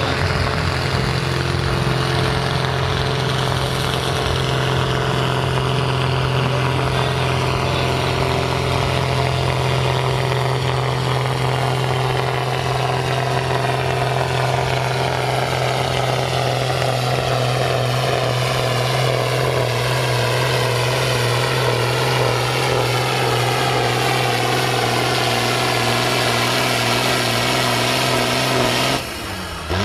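Ford 8730 tractor's diesel engine running at full load, dragging a tractor-pull sled. Its whine slides slowly lower in pitch through the second half as the sled's growing weight drags it down, and the sound drops away abruptly just before the end as the pull ends.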